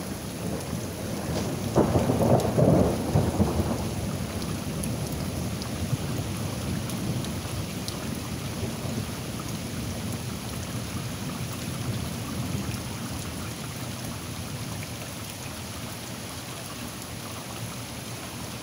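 Heavy rain falling steadily, with a clap of thunder about two seconds in that starts suddenly and rumbles for a couple of seconds before dying back into the rain. The rain grows gradually quieter toward the end.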